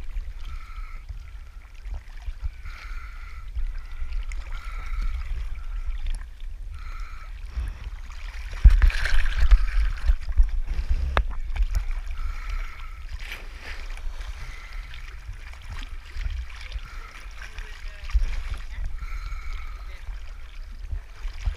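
Muffled water sloshing and rumbling around a camera bobbing at the sea's surface beside dive boats. A louder splash comes about eight and a half seconds in, with a few sharp knocks soon after.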